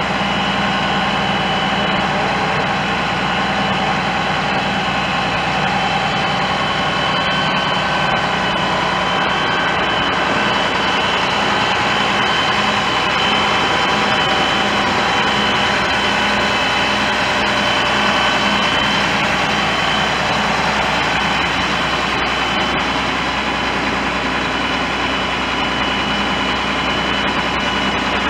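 Diesel engine of a Mack aerial tower fire truck running steadily, with a steady high-pitched whine over the engine note.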